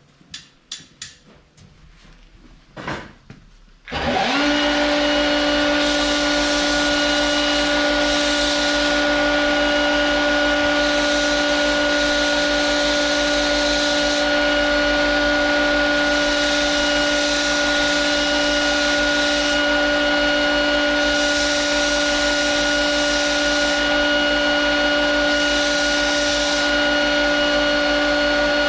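A few knocks, then a power grinder starts about four seconds in and runs with a steady whine, the hiss rising in repeated stretches of a second or more as the wheel bites into spring steel, grinding a cutting blade to shape. The motor starts to wind down right at the end.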